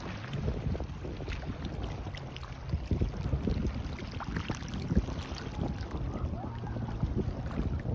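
Wind gusting on the microphone with a low rumble, over small waves washing and crackling on a beach.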